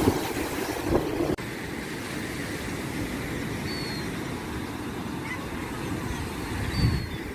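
Surf of a rough sea with wind buffeting the microphone, the sound breaking off sharply and resuming about a second and a half in.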